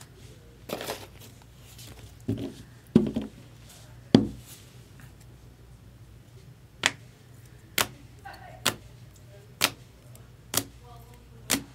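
Trading cards and their plastic holders being handled on a table: a few knocks, then sharp taps about once a second.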